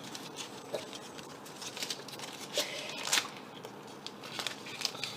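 Scattered soft rustles and clicks of trading-card packs being opened and the cards handled and sorted by hand, with a couple of sharper clicks a little after halfway.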